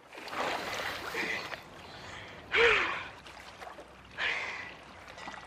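A woman swimming in the open sea: three bursts of water splashing and her breathing, the middle one, about two and a half seconds in, loudest and carrying a short voiced breath.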